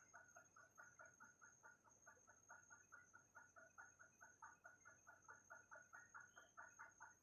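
Faint, rapid, steady clucking of a chicken, about six clucks a second, with a thin high whine behind it.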